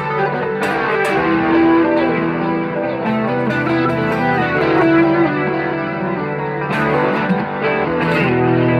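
Electric Stratocaster-style guitar fitted with a Fender Player Series loaded pickguard being played: picked notes and chords that ring on, with a few sharper pick attacks along the way, checking that the newly soldered pickups all work.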